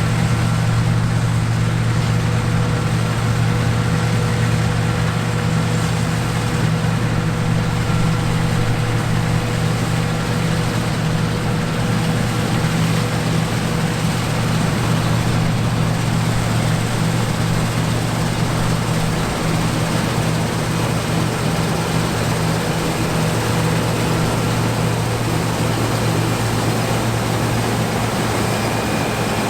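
John Deere T670i combine harvester running steadily: a constant low drone of engine and threshing machinery with a few steady higher tones above it.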